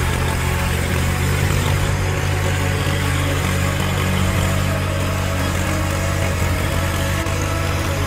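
Large truck engine running steadily, a deep even drone with no change in speed.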